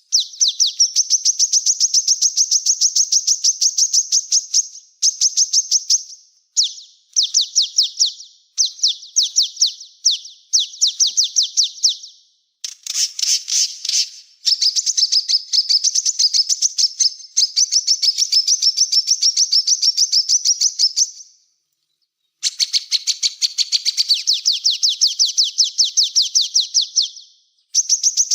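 Small songbird singing long, rapid trills of high, evenly repeated notes, about ten a second, in phrases of one to several seconds broken by short pauses, with a harsher, buzzier phrase about halfway through.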